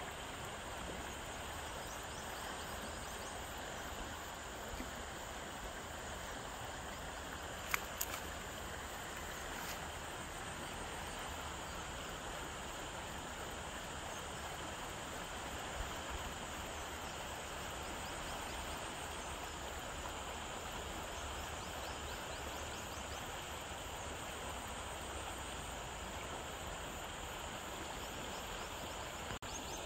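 Steady outdoor background hiss with a continuous high chirring of insects. A few sharp clicks about eight seconds in and a fainter one near sixteen seconds.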